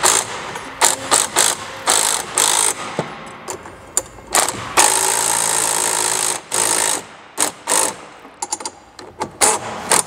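Cordless driver with a 17 mm deep socket running in short trigger bursts, with one longer run of about a second and a half about five seconds in, as it tightens the nuts clamping a seat-belt bracket to the golf cart's rear-seat frame.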